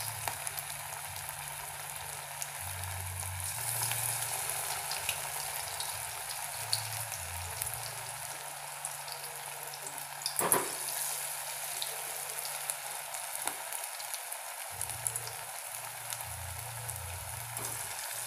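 Grated-potato pakoras deep-frying in hot oil in a steel kadai: a steady sizzle with scattered small crackles. About halfway through, a metal spoon knocks once against the pan.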